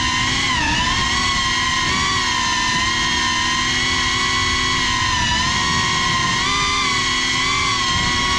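FPV quadcopter's brushless motors and propellers whining steadily. The pitch dips and climbs back about a second in as the throttle eases and picks up again.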